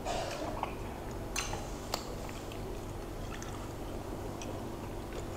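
Wet chewing and mouth sounds of people eating meatball soup, with a few sharp clicks, the clearest about one and a half and two seconds in.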